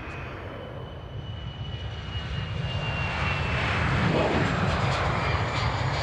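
Airliner's engines running nearby, the rumble swelling over the first few seconds and then holding loud, with a thin high whine that slides slightly down in pitch.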